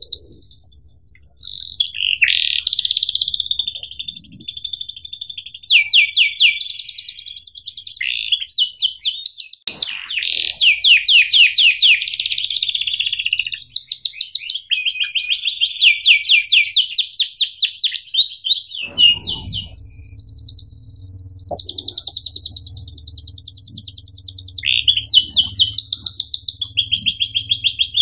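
Domestic canary singing a long, loud song of sharp chirps and fast rattling rolls (the 'cuit ngerol' style), broken by a few short pauses between phrases.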